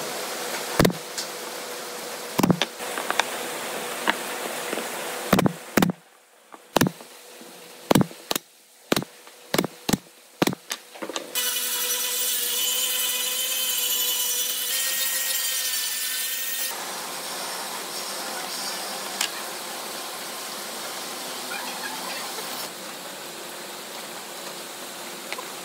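A pneumatic brad nailer fires about ten times, each shot a sharp clack, driving brads into a small wooden box. A few seconds later a handheld electric power tool runs with a steady high whine for about five seconds.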